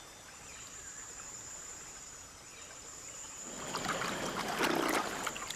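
Water splashing and sloshing, louder for about a second and a half late on, over a steady high-pitched insect drone.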